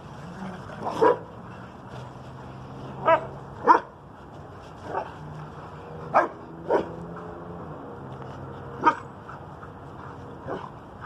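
Dogs barking during rough play: about eight short, sharp barks at irregular intervals, over a steady background rush.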